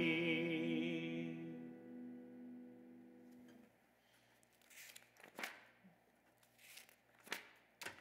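Acoustic guitar's final strummed chord ringing out and fading away over about three and a half seconds, with the last sung note held with vibrato for the first second and a half. After that, a few faint, brief rustles.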